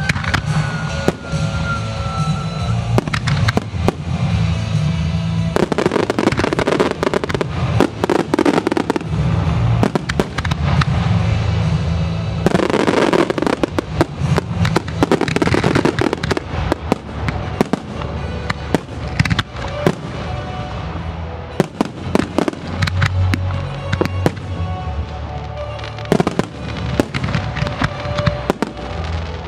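An aerial fireworks display, with shells bursting in quick succession throughout and many sharp bangs. There are two denser, louder barrages, about six seconds in and about thirteen seconds in.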